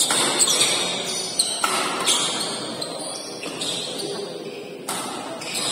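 Badminton rackets striking a feathered shuttlecock in a fast doubles rally: several sharp smacks, a jump smash right at the start, with voices of spectators chattering in the hall.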